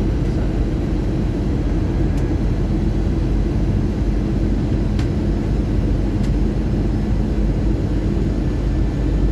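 Steady cabin noise inside an Airbus A320 on its approach with slats extended: a continuous low rumble of the engines and rushing air. There are a few faint clicks in it.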